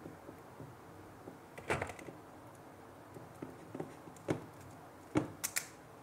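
Faint handling clicks and taps from a small plastic screw-terminal connector as a wire is fitted into it, with a few sharp clicks close together near the end.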